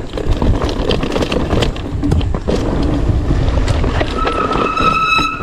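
Specialized Stumpjumper mountain bike riding over a rough dirt trail: tyre noise, knocks and rattles, with wind buffeting the microphone. Near the end a steady high squeal lasts about a second, typical of the disc brake under braking.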